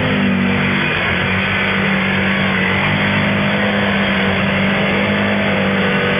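Can-Am Outlander 800 ATV's V-twin engine held at high revs while its tyres spin through deep mud and water, with a steady rush of churned mud and spray under the engine note.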